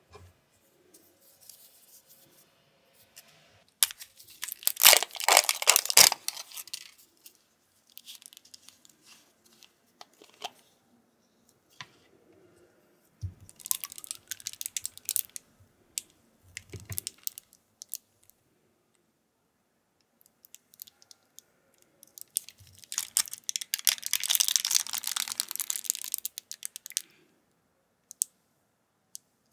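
A plastic seal on a squeezable jelly bottle's cap being torn and crinkled by hand. The crackly tearing comes in several bursts, the longest about four to six seconds in and again from about 23 to 27 seconds, with a few soft knocks of the bottle in between.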